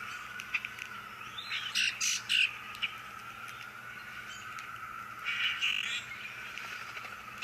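Bird calls: short bursts of chirping about two seconds in and again near six seconds, over a steady high-pitched hum.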